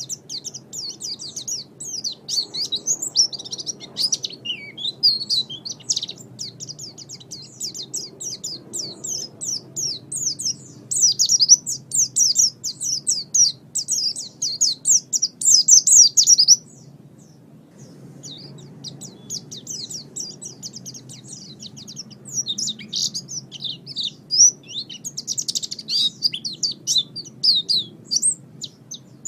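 Small songbird singing a fast, high chattering song of rapidly repeated chirps and short falling notes. It breaks off for about a second and a half just past halfway, then resumes. This is a recorded song played as masteran, to lure birds and tutor cage birds.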